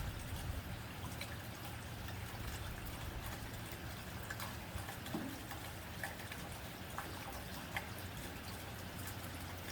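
Steady rain on a tin roof: an even hiss with scattered sharp drop ticks.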